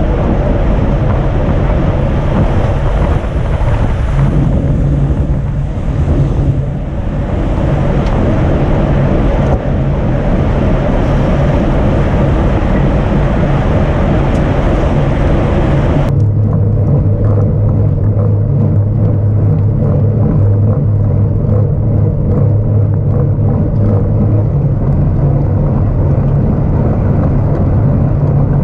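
Loud, steady riding noise picked up by a bike-mounted action camera: rushing road and wind noise with a low steady hum running under it. The sound changes abruptly about sixteen seconds in, the upper hiss dropping away and the hum growing stronger.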